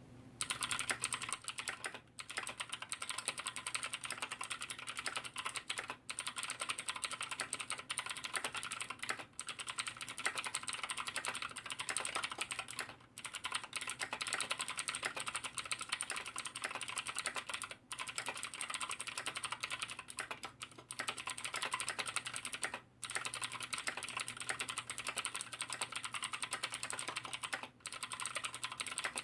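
Fast, continuous typing on a mechanical keyboard with clicky KBTalking blue switches, the Davinci Spaky in stock form, with brief pauses every few seconds. Its stabilizers are unlubricated, so some wire rattle comes through, and the case resonates noticeably.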